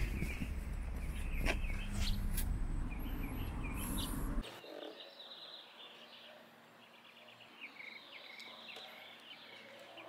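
Outdoor background noise: a low rumble with a few sharp clicks, which cuts off abruptly about four and a half seconds in. Small birds chirp faintly over a quieter background after the cut.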